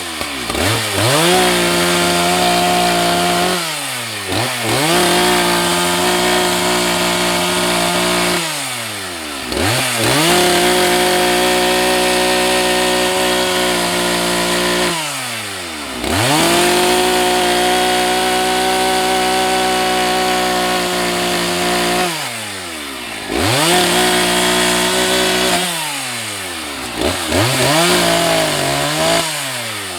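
Husqvarna 181 SE two-stroke chainsaw bucking wood into firewood. The throttle is held wide open through about six cuts of a few seconds each, and the engine note drops off and climbs back between them.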